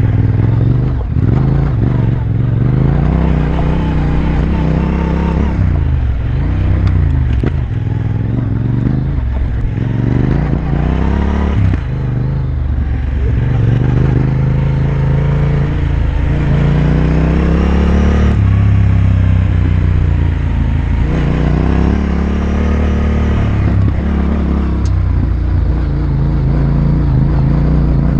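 Yamaha Ténéré 700's parallel-twin engine running under load while riding off-road, its revs rising and falling again and again with the throttle.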